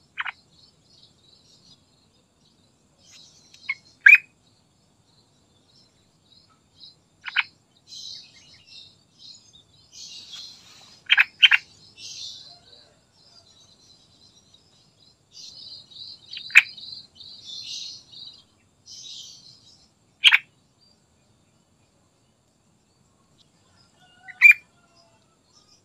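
Yellow-vented bulbul calling: short, sharp notes that fall in pitch, one every few seconds, with a quick double note about eleven seconds in. Fainter high-pitched twittering comes and goes in between.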